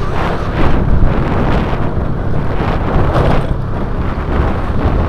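Wind buffeting the microphone of a moving motorcycle, a loud steady rush over the low rumble of engine and road noise.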